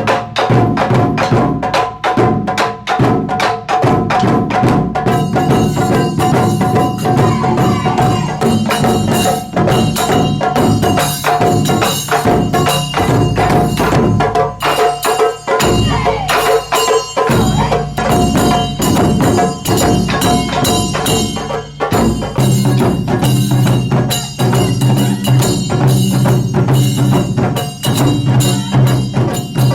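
Taiko drum ensemble playing a fast, dense rhythm with sharp wood-block-like clicks, over a held pitched tone. About five seconds in, a bright high ringing layer joins the drums.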